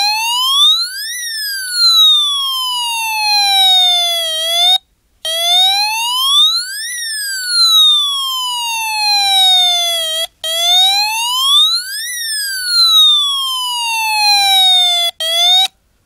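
Homemade mini electronic siren, an old spy-gear alert circuit board driving a small speaker, on its wail setting. A loud electronic tone sweeps up quickly and then glides slowly back down, about three times, cutting out briefly between sweeps.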